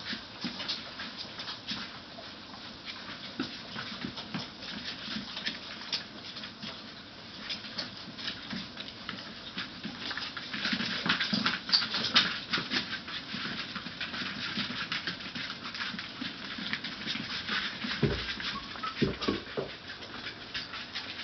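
Litter of young puppies suckling and jostling under their mother while she licks and noses them: a steady stream of small wet clicks and smacks, busiest about ten to thirteen seconds in, with a few low bumps near the end.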